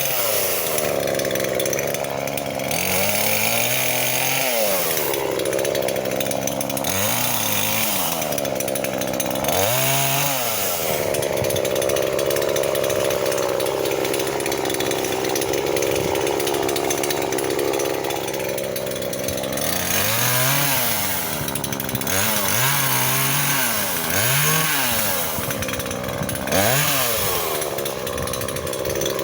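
Chainsaw cutting firewood. The engine revs up and drops back again and again, and holds high revs for several seconds in the middle of the stretch.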